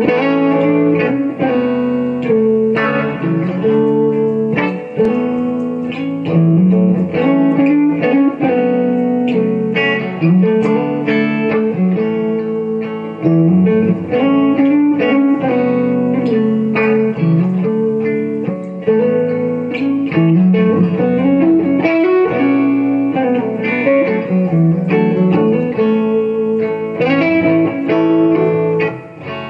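Gibson Les Paul electric guitar played solo through a 1964 Fender Super Reverb amp: an improvised run of chords and melodic lead lines with ringing, sustained notes.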